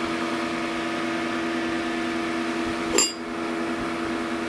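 The cooling test jig's fan running with a steady hum. About three seconds in, a single sharp metallic clink as the metal cover disc is put back over the barrel.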